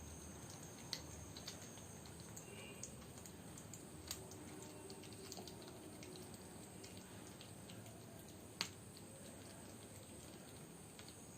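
A cat eating: faint, irregular small clicks and smacks of its chewing and licking, one sharper click about two-thirds of the way through, over a steady low background hiss.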